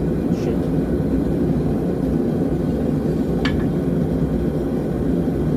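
A forge running steadily, an even low rumble, with one short click about three and a half seconds in.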